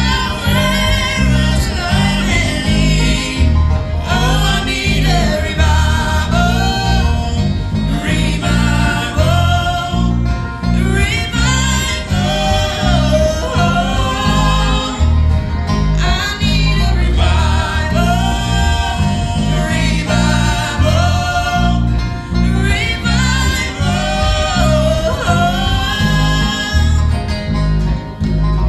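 Country-gospel group singing, with guitar accompaniment and a steady, rhythmic bass line underneath.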